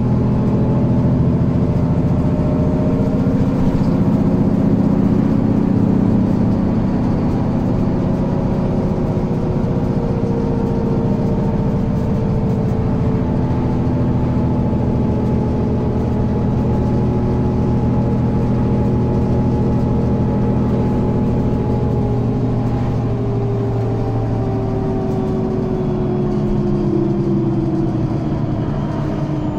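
Mercedes-Benz Citaro O530G articulated city bus with Voith DIWA 3 automatic transmission, heard from inside while under way: steady engine and driveline running, its pitch slowly rising and falling with speed and sinking toward the end as the bus slows.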